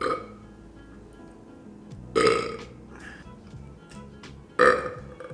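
A man belching three times: a short belch at the start, then two loud, drawn-out burps about two and four and a half seconds in.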